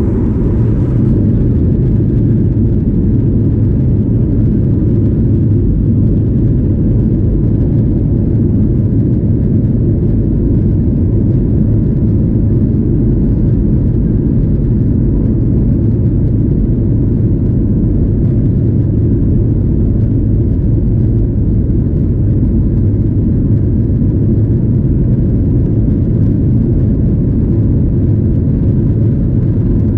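Steady low rumble of a Boeing 737-800 heard from inside the cabin at a seat over the wing: engine and airflow noise at an even level.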